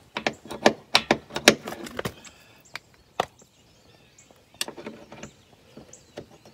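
Irregular sharp clicks and knocks as a metal clip-on cleat and rope loop are worked by hand and fastened onto the boat. They come thick in the first two seconds, then a few scattered ones and a short cluster near the end.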